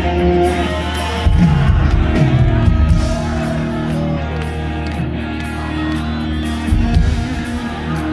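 Live rock band playing loudly through a concert PA, with held chords over the band and heavy low drum-and-bass hits about a second in and again near seven seconds.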